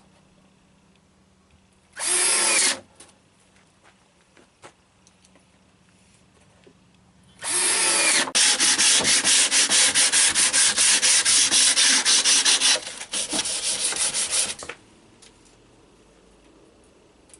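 A tool working wood: a short rasping burst about two seconds in, then around seven seconds of rapid, evenly spaced strokes, about five a second.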